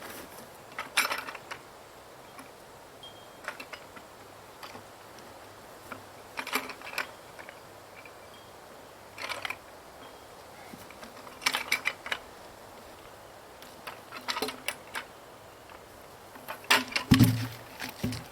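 Short bursts of clinking, clattering clicks every two to three seconds, with a heavier thump near the end.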